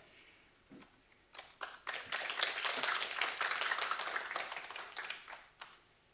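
A small audience clapping: a few scattered claps, then steady applause from about two seconds in that dies away near the end.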